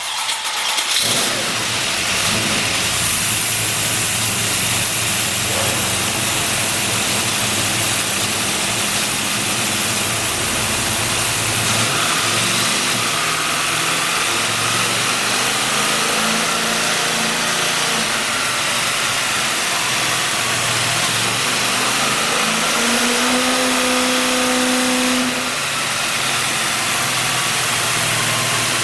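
Built 383 V8 with a solid roller cam, running loud and hard under load on a chassis dyno during a full power run. Its level eases slightly near the end.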